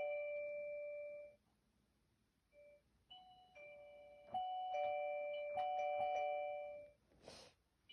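Two-note ding-dong doorbell chime played on a toy electronic keyboard: a higher note falling to a lower one, ringing on. After a pause it repeats several times with the notes overlapping. A short hiss comes near the end.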